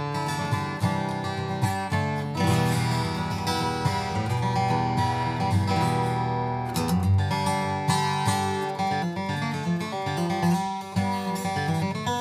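Boucher BG-152-G dreadnought acoustic guitar, with an Adirondack spruce top and Madagascar rosewood back and sides, being flatpicked: strummed chords mixed with picked notes. Its low end is tight, compact and punchy.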